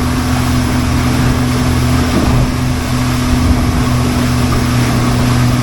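A small fishing boat's outboard motor running steadily under way, a constant low engine hum mixed with loud rushing wind and water noise.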